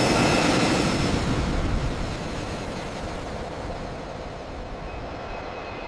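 Jet aircraft flying low overhead: a loud roar that starts suddenly and slowly fades as the plane moves away.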